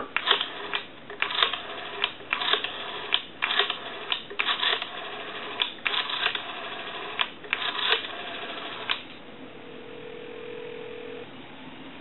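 Western Electric 202 rotary dial being turned and let go digit after digit, each return of the dial a short burst of rapid clicking as the number is dialled out. Near the end, about two seconds of a steady ringback tone on the line as the called number rings.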